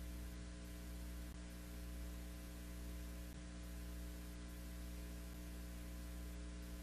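Quiet, steady electrical mains hum: a low hum of evenly spaced steady tones with a faint hiss over it.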